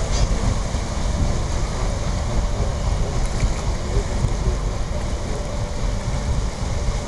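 Wind buffeting the microphone over the steady churn and slosh of river water stirred up by a departing paddleboat's wash.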